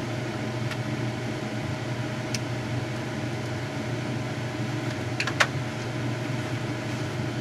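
Steady whirring hum of a hobby spray booth's exhaust fan, with an HO-scale model steam locomotive's motor driving its wheels on a roller stand. A few brief clicks about two and five seconds in.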